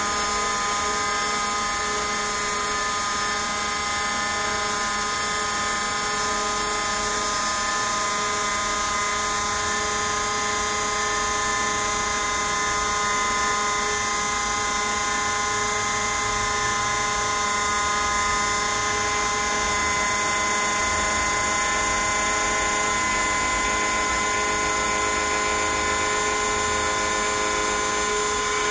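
Hobby CNC router carving: its small spindle motor whines steadily at high speed while the cutter works through the block, with several steady tones layered together and no breaks.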